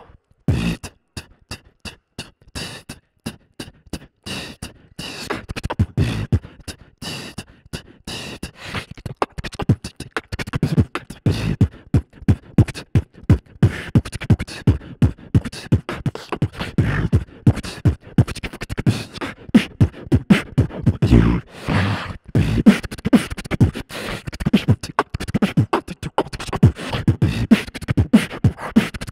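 Rhythmic percussion track of sharp clicks and hits in a beatboxing style. The hits are sparse for the first few seconds and grow denser and louder from about ten seconds in.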